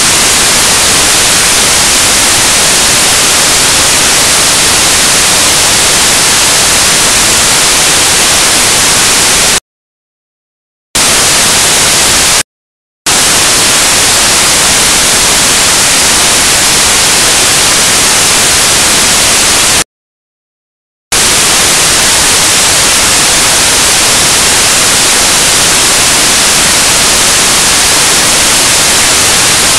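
Loud, steady static hiss fills the audio track in place of any court sound. It cuts out to dead silence three times, each gap lasting a second or less.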